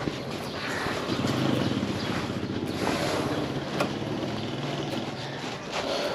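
A car in motion: the engine running steadily under road noise, with wind buffeting the microphone.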